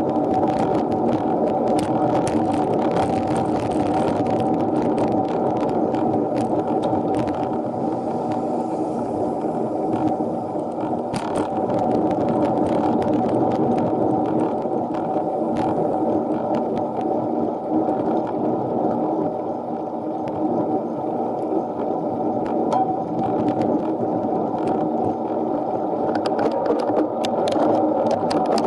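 Steady, muffled rumbling noise of a bicycle ride heard through an action camera mounted on the bike, with frequent small knocks and clicks throughout.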